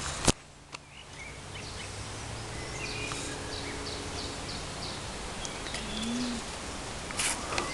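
Songbird singing in the background: a run of short, evenly spaced high chirps, about three a second, midway through, among a few other short notes over steady outdoor background noise. A single sharp click comes right at the start, and a brief rush of noise near the end.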